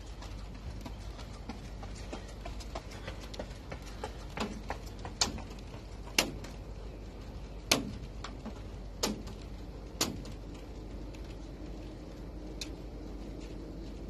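A run of sharp clicks and knocks over a steady low rumble of wind on the microphone: light and scattered at first, then about six louder knocks roughly a second apart in the middle.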